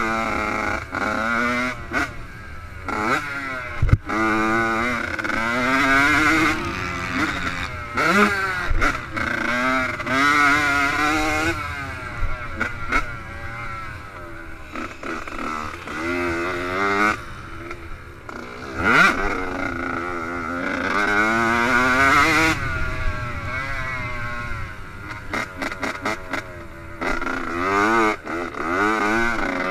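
Yamaha YZ85 two-stroke motocross bike engine, revved hard and shifted through the gears over and over: the pitch climbs, drops at each shift or throttle-off, and climbs again. A few sharp knocks come through, as around four seconds in.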